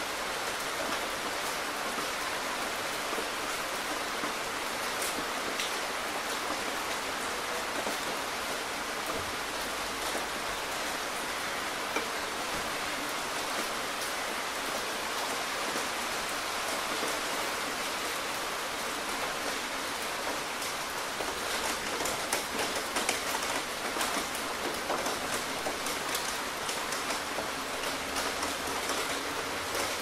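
Steady rainstorm: rain falling in an even hiss, with individual drops splatting close by. The splats come thicker in the later part.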